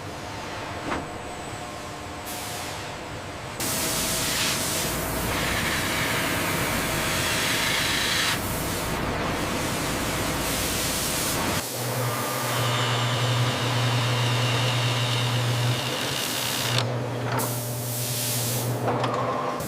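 Factory machinery noise in changing stretches: a hiss with a low rumble starting a few seconds in, then a steady low hum with a higher whine over it for the second half.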